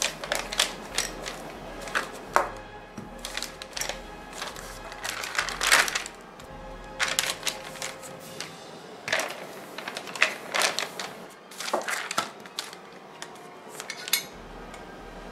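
Handling noises from rolling out air-dry clay with a drinking glass on a paper sheet: irregular short rustles and crinkles of the paper, with clicks and knocks of the glass and hands.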